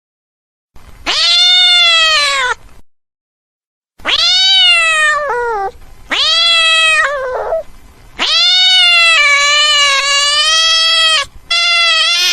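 Cat meowing: five separate drawn-out meows with silent gaps between them. The fourth meow is the longest, held for about three seconds.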